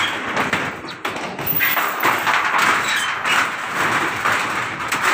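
Corrugated iron roofing sheets being stepped on and handled: a steady noisy rustle with many small taps and knocks of the metal.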